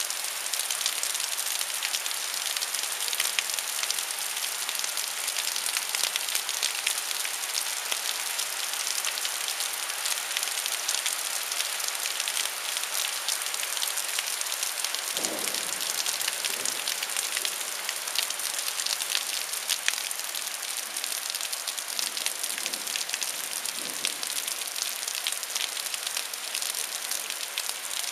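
Steady thunderstorm rain, a dense hiss of many fine drop clicks. A brief low rumble comes about halfway through, with fainter low swells later.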